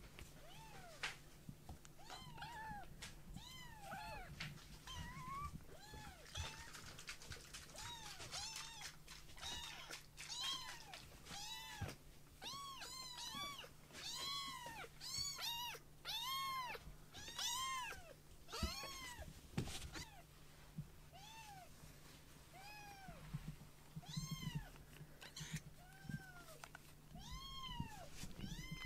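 Young kittens meowing over and over in short, high, arching cries, about one or two a second, thickest in the middle stretch.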